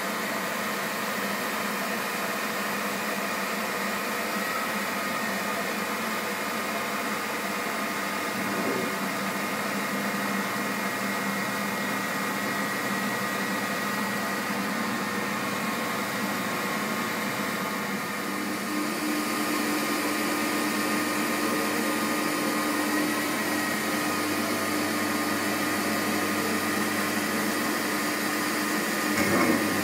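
MAHO MH 700 C CNC universal milling machine running under program control, its motors and axis drives making a steady whine over a mechanical hum. About two-thirds of the way through, a lower tone joins and the machine gets slightly louder. There is a brief sound just before the end.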